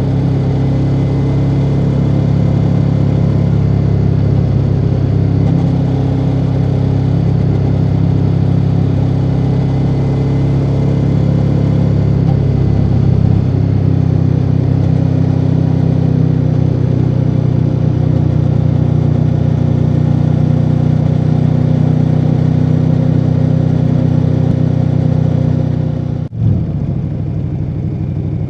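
Ducati Multistrada V4 Rally's V4 engine through its stock exhaust, running at steady cruising revs under way with wind hiss. About 26 seconds in the sound breaks off sharply for a moment and then comes back lower and less even, as at a gear change or a roll-off of the throttle.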